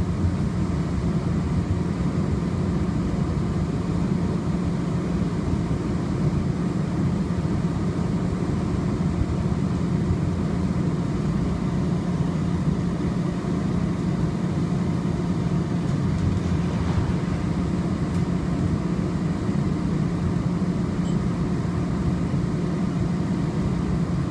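Muni Metro J Church light-rail car running, heard from inside the car: a steady rumble with a low hum that holds even throughout.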